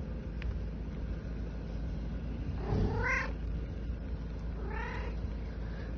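A street cat meows twice, about two seconds apart. Each call rises and then falls in pitch, and the first is a little longer than the second.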